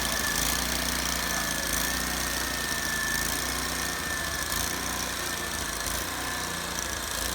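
An engine running steadily with no revving, with a thin, steady high-pitched whine above it.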